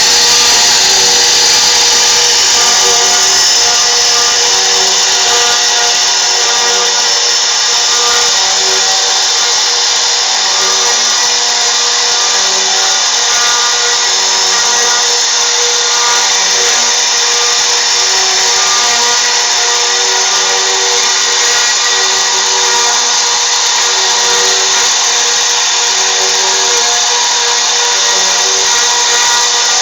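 3D CNC router spindle running steadily with a high whine as it cuts.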